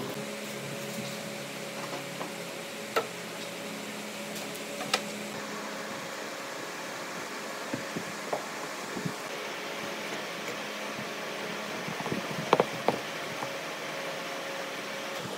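Steady hum of a running workshop machine, with a few sharp knocks: one about three seconds in, one about five seconds in, and a quick cluster near the end.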